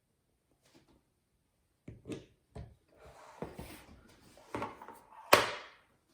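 Kitchen handling noises: a few short knocks and some rubbing and rustling from about two seconds in, with one sharp knock near the end as the loudest sound.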